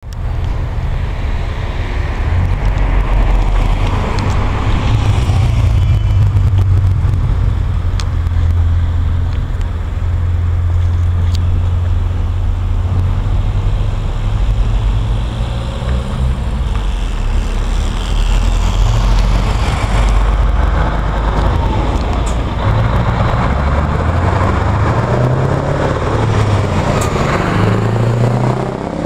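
Scania V8 truck engine running with a deep, steady drone among passing traffic. In the last several seconds it revs in repeated rising and falling surges as it drives past: the open-piped V8 rumble known as klapperen.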